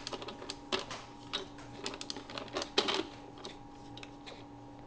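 Irregular light clicks and taps at uneven intervals, with a small cluster about three seconds in, over a faint steady hum.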